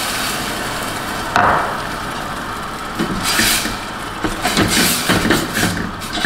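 Metal spoon scraping and stirring frying masala in a steel pot on a gas stove, with bursts of scraping in the second half over a steady sizzle. A single knock, like a utensil against the pot, about a second and a half in.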